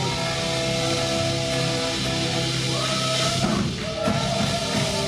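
Live rock band with electric guitar and drum kit holding out a final sustained chord, which breaks off about three and a half seconds in as the song ends and the audience starts to cheer.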